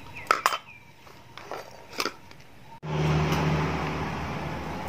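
A few light clicks of a metal spoon against a plastic bowl. About three seconds in, a motor vehicle engine starts to be heard running steadily with a low hum and carries on to the end.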